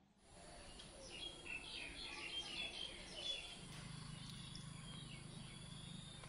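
Outdoor ambience: small birds chirping over a steady background hiss, with the chirps thinning out after a few seconds. A low, steady hum sets in about three and a half seconds in.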